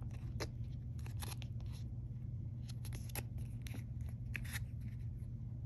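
Scattered light clicks and ticks of clear plastic coin holders being handled and turned over in the hand, over a steady low hum.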